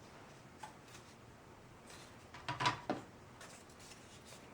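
Faint handling sounds of keyboard case covers: a few light clicks, then a short cluster of knocks about two and a half to three seconds in.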